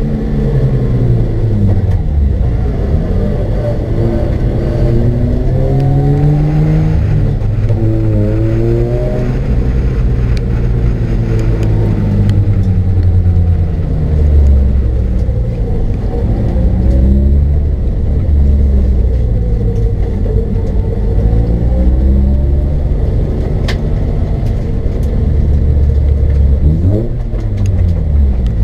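Mazda RX-8's twin-rotor rotary engine pulling at low to moderate revs, its pitch rising and falling again and again with throttle and gear changes as the car drives slowly off the track and into the paddock.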